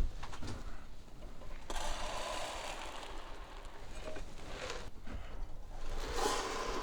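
Dry feed pellets being poured into rabbit feeders: a rattling pour lasting about three seconds, then a shorter pour near the end.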